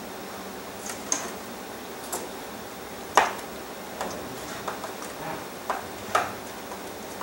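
Scattered light clicks and knocks as epoxied fins are handled and pressed onto a cardboard rocket body tube sitting in a work stand. They come at irregular moments, the loudest about three seconds in and again about six seconds in.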